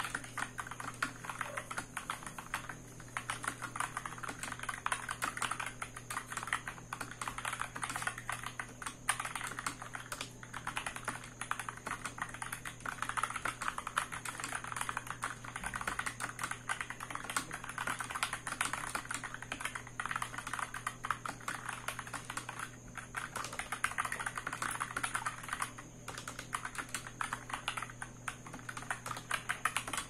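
Continuous typing on an Epomaker AK61 60% mechanical keyboard fitted with optical brown switches: a dense, steady stream of key clacks with a few brief pauses.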